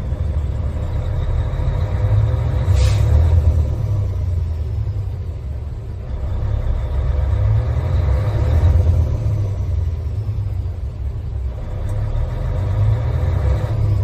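Mercedes-Benz Actros 3236's OM 501 LA V6 turbodiesel running, heard inside the cab and revved up from idle, the engine sound swelling and easing three times, with a faint high whistle that rises and falls with the revs. A short hiss about three seconds in.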